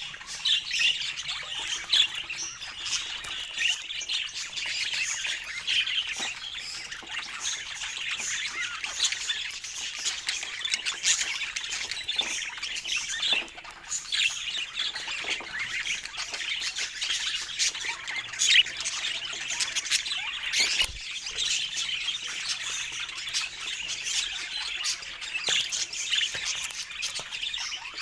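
Budgerigars chattering: a steady stream of short chirps, squawks and warbles.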